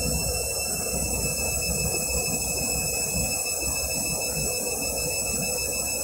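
Candy front-loading washing machine with its drum turning at speed: the motor gives a steady high whine over the low churning and sloshing of a very sudsy load.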